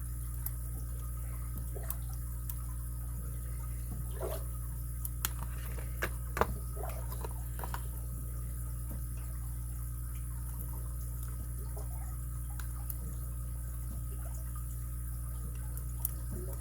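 Faint metallic clicks and scrapes of a pick and tension wrench working the pin stack of a padlock, bunched together from about four to eight seconds in, the sharpest click near the middle, over a steady low hum.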